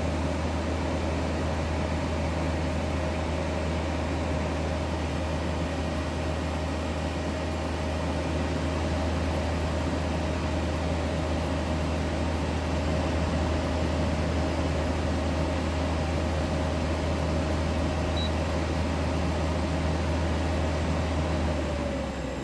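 Mitsubishi EV250HM dehumidifier running with a strong, steady low hum and a steady higher tone over an even hiss: the noise the owner presents as abnormal. Near the end the hum falls away and the tone dips slightly in pitch as the unit winds down.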